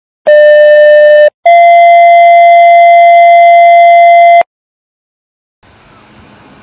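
Two-tone sequential fire department paging tone: a steady tone for about a second, a brief gap, then a slightly higher steady tone for about three seconds that cuts off suddenly. After a second of silence, faint outdoor street noise begins.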